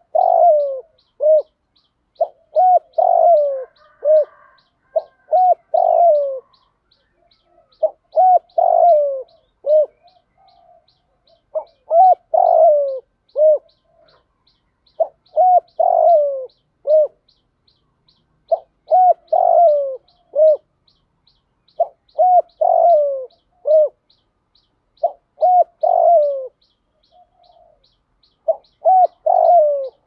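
Spotted dove cooing: a phrase of several low coos repeated every three to four seconds, about ten times. It is the call of a caged decoy dove, used to draw wild spotted doves into calling back.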